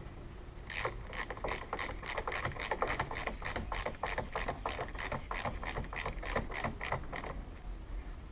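Ratcheting screwdriver clicking as a wood screw is turned by hand into a latch faceplate in a soft pine door edge. The clicks come in an even run, about four a second, starting about a second in and stopping shortly before the end.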